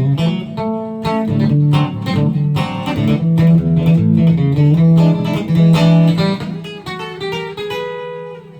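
Fender Telecaster electric guitar played on its bridge pickup: a country-style run of picked notes and chords, with the last notes left ringing near the end.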